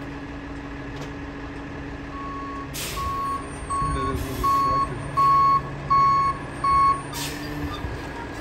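Rear-loading garbage truck idling, then its backup alarm beeping about seven times as it reverses. Two short hisses of air from the truck's air brakes come about three seconds in and again as the beeping stops.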